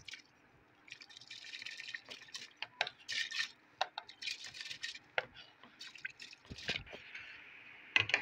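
Soaked rice being poured from a bowl into a pot of lukewarm water, splashing and pattering in several bursts, with a knock near the end.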